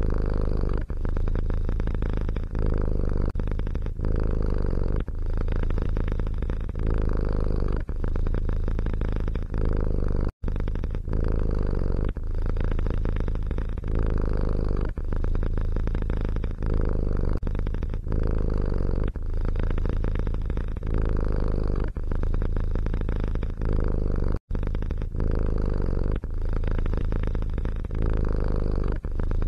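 Domestic cat purring, a steady low rumble that rises and falls in even cycles of about a second. It breaks off to silence for an instant twice.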